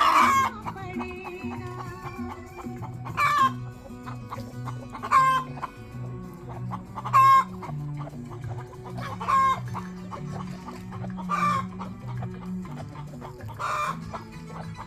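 Chickens calling, a loud short call about every two seconds, over background music.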